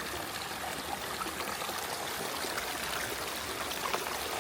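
Mountain stream rushing over rocks, a steady wash of water.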